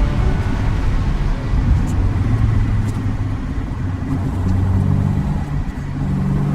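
Volvo Amazon's four-cylinder engine running while the car drives along, with road noise underneath. The engine pitch steps up a couple of times in the second half.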